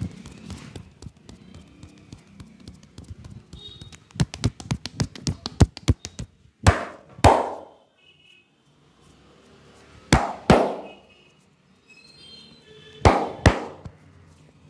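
Massage percussion with the hands: a quick run of sharp chopping taps, about seven a second, then three pairs of loud hand slaps, the two in each pair about half a second apart.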